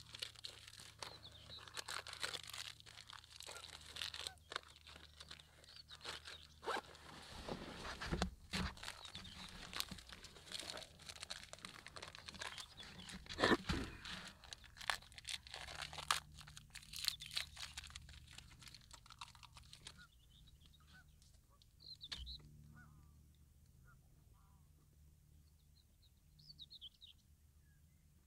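Plastic snack wrapper crinkling and tearing as it is handled and opened, mixed with crunching bites. The rustling stops about two-thirds of the way through, leaving a few faint bird chirps.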